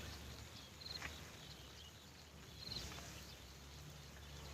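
Quiet outdoor background in which a short, high trilled chirp sounds twice, about two seconds apart, from a small animal such as an insect or bird.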